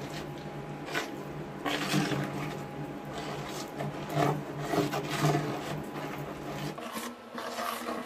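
Crushed chalk powder and water being mixed by hand into a wet paste in a plastic bowl: irregular rubbing, scraping strokes, the loudest about two, four and five seconds in. A steady low hum runs underneath and stops near the end.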